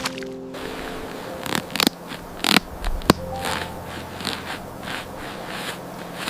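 Irregular sharp clicks and scrapes of rescue hauling gear under strain as the team pulls, with a few faint steady tones beneath.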